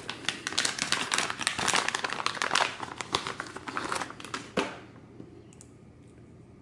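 Plastic packaging bag crinkling and rustling as a pair of silicone multimeter test leads is opened and pulled out, dying away about four and a half seconds in to faint handling of the leads.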